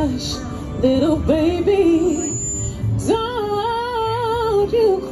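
A woman singing a slow soulful song live over soft instrumental accompaniment through a small PA speaker: a few short phrases, then one long wavering held note starting about three seconds in.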